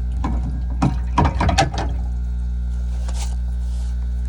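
Clicks and knocks of a tool and plumbing fittings being handled, in a short cluster about a second in, over a steady low hum.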